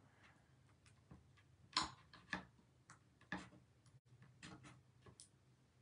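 Faint, irregular clicks and taps of fingers pressing and lifting an adhesive silk-screen transfer on a chalkboard, with a few louder ticks scattered through.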